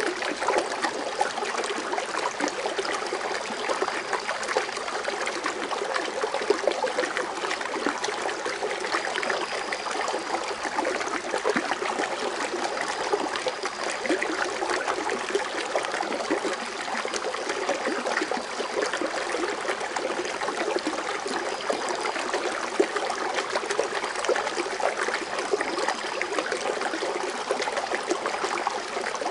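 Foaming water fountain splashing and trickling steadily, a continuous patter of falling water.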